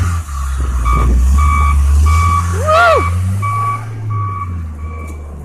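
Snowplow's reverse-warning alarm beeping steadily, a little under twice a second, the signal that the plow is backing up. The beeps fade toward the end over a steady low rumble.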